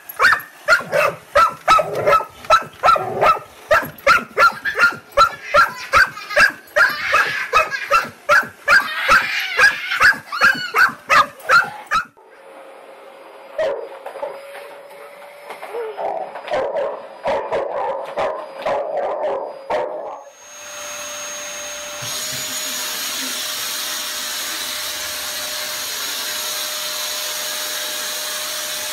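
A dog barking rapidly and without pause at a robot vacuum, about two barks a second, for roughly the first twelve seconds. Then a quieter stretch with a steady hum from the robot vacuum and softer whimpering from the dog. From about twenty seconds in, a canister vacuum cleaner runs steadily.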